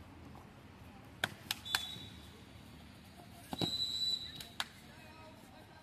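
Referee's whistle in a kabaddi match: a short blast about two seconds in, then a longer steady blast of just under a second. A few sharp cracks come around them, mostly just before each blast.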